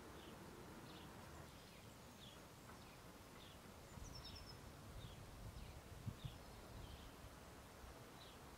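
Faint outdoor ambience with a small bird calling: short high chirps about once a second and one higher falling call about four seconds in.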